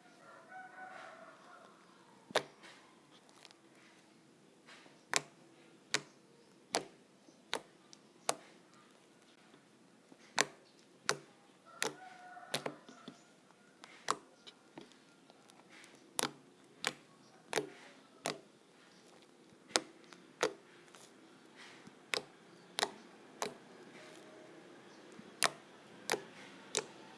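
Toothpaste slime squeezed and kneaded by hand, giving sharp popping clicks as trapped air bursts. The clicks come in loose runs, roughly one every two-thirds of a second, with soft squishing between them.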